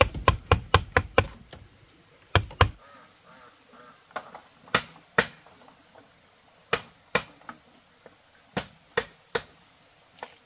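Sharp wooden knocks of bamboo being worked with a wooden mallet. There is a quick run of about eight blows at the start, then spaced single and paired taps every second or two.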